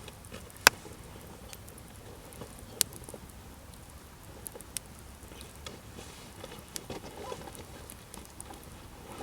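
Wood campfire crackling, with two sharp pops, one just under a second in and one near three seconds in, and smaller crackles after.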